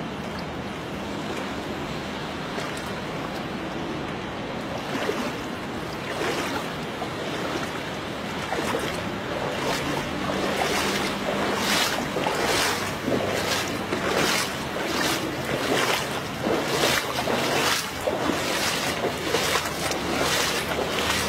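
Steady outdoor noise with wind on the microphone, then from about halfway, footsteps on wet ground at an even walking pace, each step a splash-like scuff.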